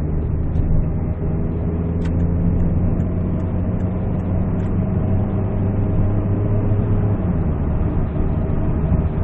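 A 2008 Peugeot 207cc's 1.6-litre petrol engine and tyre noise, heard from inside the cabin as the car accelerates on the open road: a steady low engine drone. One low engine note drops away about seven seconds in.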